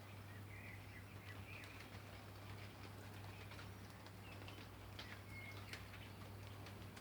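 Faint light rain: a soft hiss with many small drops ticking. There are a few short bird chirps and a steady low hum underneath.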